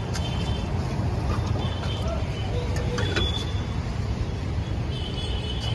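Steady low rumble of street traffic, with a few faint clicks and a couple of brief high-pitched chirps about halfway through and near the end.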